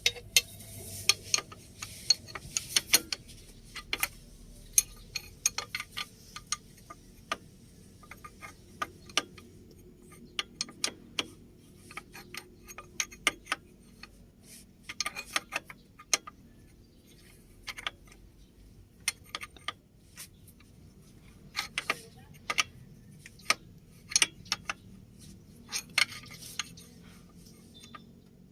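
Metal hand tools clicking and clinking in irregular sharp taps, with no engine running, during work on a drive belt's tension adjustment.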